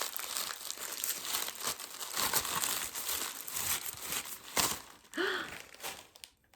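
Wrapping being crinkled and torn off a small glass bottle: dense rustling and crackling that stops about five seconds in, followed by a short murmur from a person.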